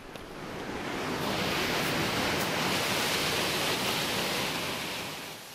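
Rushing glacial meltwater, a steady hiss of water that swells up over the first two seconds and fades away near the end.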